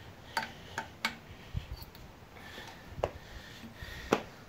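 A handful of sharp, irregular metal clicks and taps from hand tools and fittings being handled on an air compressor's head, with a couple of duller knocks between them; the sharpest click comes near the end.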